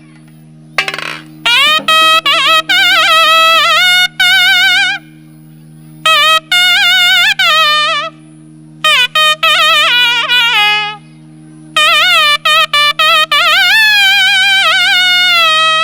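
Nadaswaram playing a folk melody in short, heavily ornamented phrases with brief pauses between them, over a steady drone.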